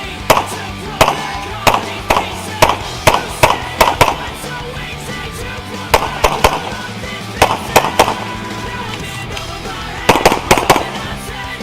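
Gunshots fired in quick strings of two to four with short pauses between, over background music with sustained bass notes.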